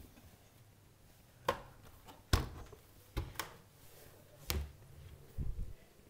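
Several scattered knocks and clicks, some with a low thump, the sharpest a little over two seconds in.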